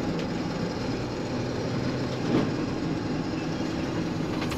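Steady engine hum and road noise inside the cab of a box truck driving along.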